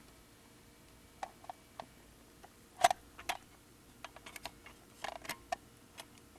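Scattered light metal clicks and knocks as a rotisserie motor is fitted onto the square end of a loaded spit and set on its stand, with a louder knock about three seconds in.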